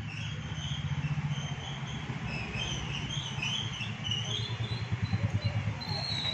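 A vehicle engine idling, a steady low rumble that pulses evenly, with faint high chirps flickering over it.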